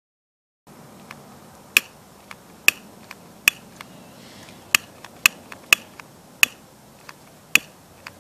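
Butane utility lighter's piezo igniter clicking as its trigger is pulled over and over: about eight sharp snaps at irregular intervals, with fainter clicks between them. The lighter is failing to light.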